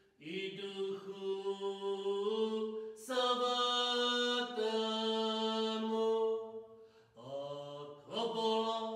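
A man's solo voice chanting a liturgical text unaccompanied on long held notes, stepping up in pitch about three seconds in. There is a brief break near the end before the next phrase begins.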